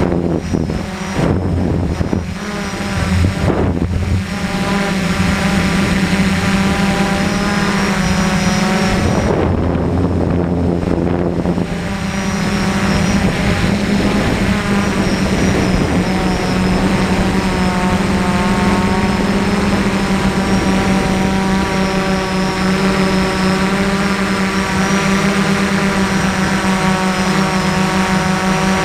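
DJI F450 quadcopter's electric motors and propellers buzzing in flight, the pitch wavering up and down as the throttle changes.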